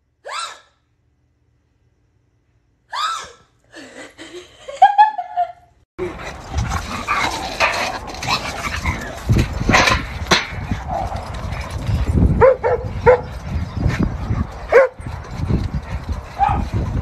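Dog whining and yipping: a few short, high calls that bend in pitch during the first six seconds, then a continuous noisy stretch with several short yips.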